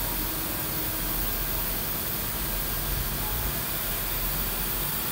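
Steady hissing machine noise from a running DMG DMU 60T CNC milling machine, without distinct knocks or cuts.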